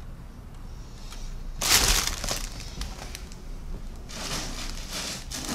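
Plastic model-kit sprues and their plastic bags being handled and set aside: a crinkly rustle and clatter about a second and a half in, and a longer one from about four seconds.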